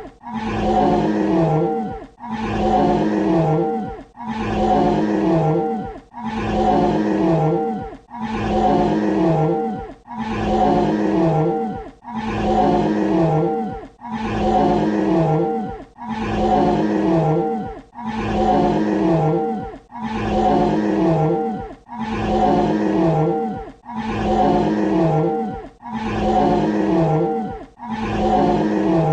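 Dinosaur roar sound effect: the same short, growling roar looped over and over, about one every two seconds, each with a pitch that drops low near its end.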